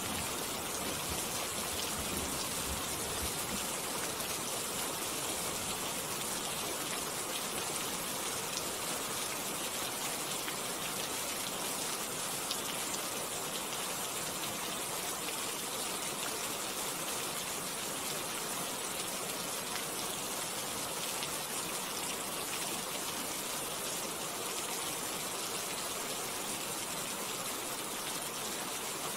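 Steady rain falling on leaves, an even hiss of drops with no change in strength. A low rumble of thunder dies away in the first few seconds.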